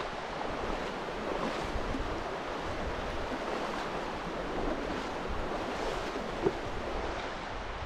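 Virgin River water rushing steadily over rocks in a shallow rapid, an even rush of noise. One brief click about six and a half seconds in.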